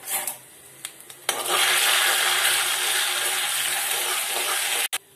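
Cumin seeds and dried red chillies frying in hot ghee in a kadhai for a tempering: a loud sizzle with the cumin spluttering, starting abruptly about a second in and cutting off suddenly near the end.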